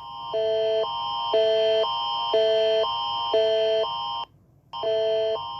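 Emergency alert attention signal: an electronic alarm switching between two multi-tone chords about twice a second. It breaks off briefly about four seconds in, then starts again.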